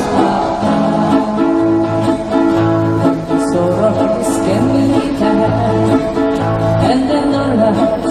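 Live acoustic guitar band playing a bouncy pop song: strummed acoustic guitars over a steady, evenly repeating bass line.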